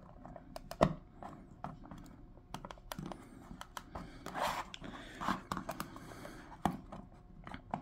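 Small hard-plastic clicks, taps and scrapes as a PVC figure is handled and its foot worked onto a peg of its display base, with the sharpest click about a second in. A couple of short rustles of hands on the figure come a little past the middle.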